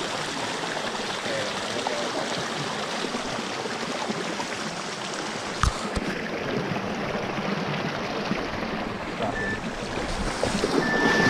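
Shallow creek water rushing over cobbles, a steady wash. One short knock comes about halfway through, and a brief high steady beep sounds near the end.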